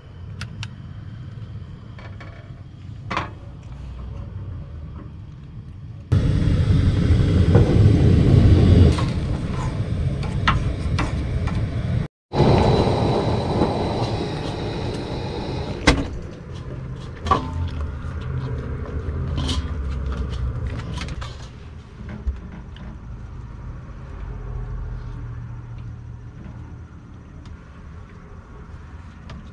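Propane camp-stove burner running under a bowl of soup, a steady hiss and rumble that grows much louder for several seconds in the middle, with a few sharp clicks and knocks after it.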